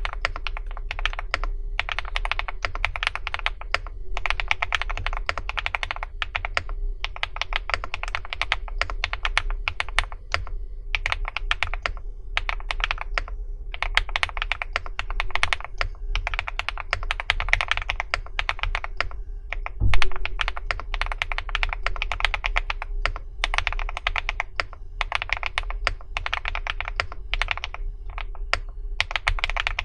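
Typing on a Meteor80 custom mechanical keyboard: quick runs of keystrokes in bursts of a second or two with short pauses between them. About twenty seconds in there is a single heavier thump.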